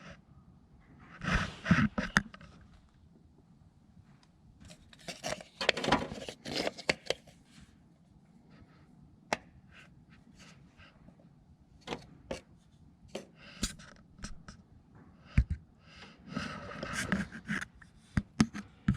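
Scraping and rustling with scattered sharp clicks, coming in bursts a few seconds apart: someone shifting about under a car.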